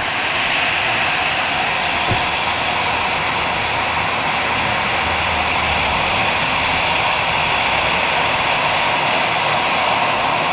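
Airbus A320's twin CFM56 turbofans running steadily at taxi power as the jet rolls toward the listener, growing a little louder at first. A single click about two seconds in, and a thin high whine comes in near the end.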